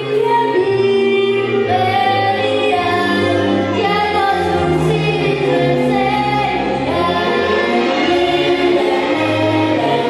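A song sung by a group of voices together over musical backing, with long held notes in a flowing melody.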